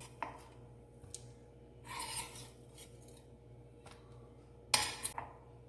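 Metal idli-steamer plates and utensils being handled as steamed idiyappam is lifted off them into a dish: a light click, a scraping rub about two seconds in, then a sharper metallic clatter with a couple of knocks near the end, the loudest sound.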